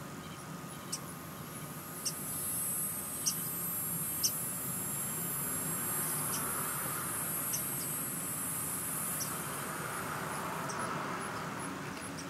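High-pitched insect buzzing that stops near the end, followed by a steady run of short high chirps, with a few scattered sharp ticks.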